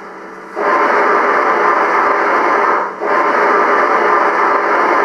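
Gauge 1 (1:32) BR 50 model steam locomotive's sound unit playing a loud steam hiss through its small speaker while the engine stands still. The hiss cuts in suddenly about half a second in and breaks off briefly near three seconds before starting again.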